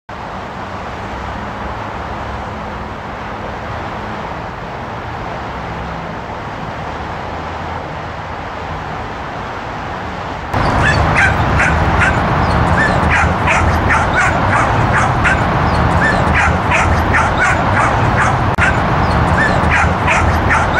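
Steady background noise, then about halfway through a dog starts yipping and barking over and over, short high calls about two or three a second.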